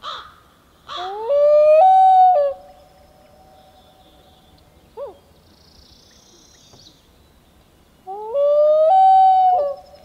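Common loon wailing twice: each call slides up in steps to a long, clear held note, one about a second in and one near the end, each trailing off into a fainter held tone. A short single falling note sounds about halfway between them.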